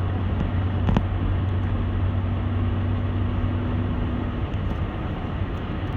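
Steady road and engine noise inside a moving car's cabin, with a low hum that fades out about two-thirds of the way through and a brief click about a second in.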